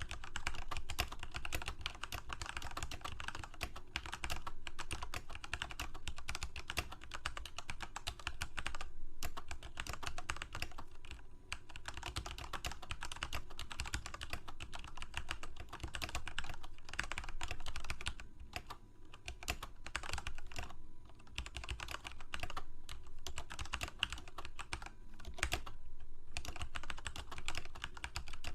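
Continuous typing on a computer keyboard: a fast, uneven stream of key clicks, broken by a few short pauses.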